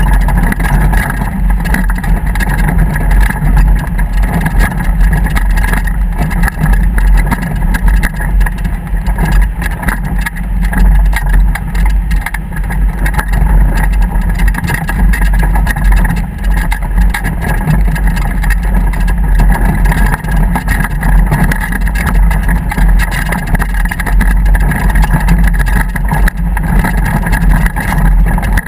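Motorboat running steadily under way, its engine drone mixed with rushing wind and water noise.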